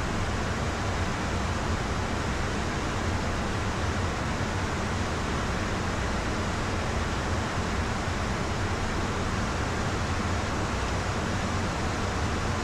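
Steady in-flight cabin noise of a Beechcraft Premier I business jet at high speed: an even rush of air with a low hum underneath, unchanging throughout.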